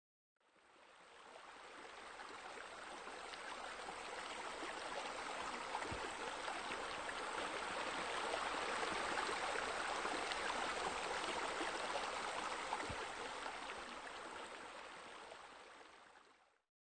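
Running water spilling and splashing into a pool, a steady rush like a small waterfall, fading in over the first couple of seconds and fading out near the end.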